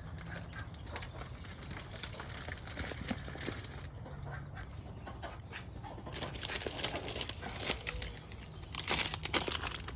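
Muscovy ducks and ducklings eating, their bills making scattered quick clicking pecks at the food, which come thicker near the end.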